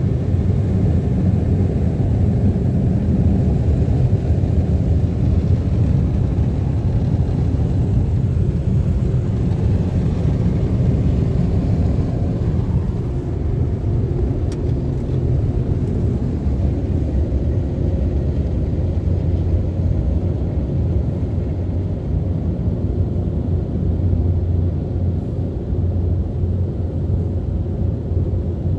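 Ryko SoftGloss XS soft-touch rollover car wash working over the car, heard from inside the cabin as a steady, muffled low rumble of its spinning foam brushes and water spray.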